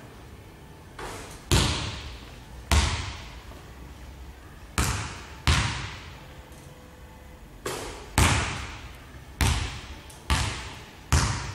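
Basketball thudding on a hardwood court, about ten separate impacts at uneven intervals, each trailing off in the hall's echo.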